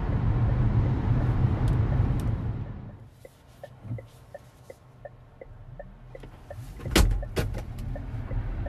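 Inside the cabin of a Deepal S07 electric SUV: steady road and tyre noise at highway speed that drops away after about three seconds. A quiet stretch with faint ticks, about three a second, follows at a standstill. A sharp click comes about seven seconds in, then road noise builds again as the car launches hard from rest.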